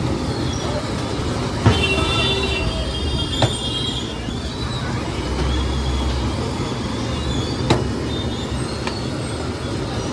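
Steady street traffic noise, broken by three short sharp knocks, with a brief high ringing tone about two seconds in.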